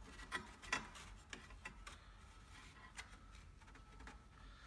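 Faint, light clicks and taps of wooden shims being handled and pressed under a door threshold: several in the first couple of seconds, one more a little later.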